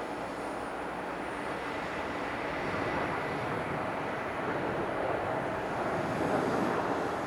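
Jet airliner engines heard as a steady, even rush of noise that swells slightly toward the end.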